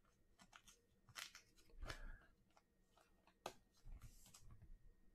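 Near silence with a few faint clicks and rustles of trading cards being handled and slid through a stack in the hands.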